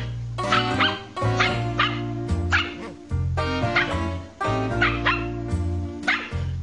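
A small puppy barking and yipping in short repeated calls while it tugs at a blanket, over background music with a steady bass line.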